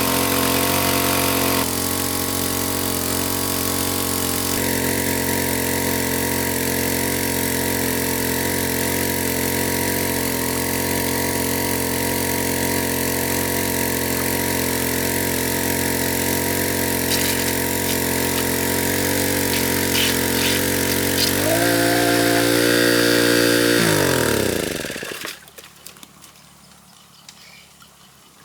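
A small engine running steadily, revving up about three quarters of the way in, then shut off and winding down to a stop, leaving faint trickling water.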